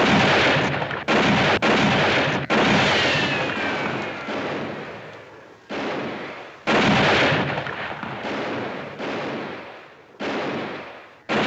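A running exchange of rifle shots, about ten in all, each a sharp crack with a long echoing tail, the loudest at the very start. A bullet ricochet's falling whine comes about three seconds in.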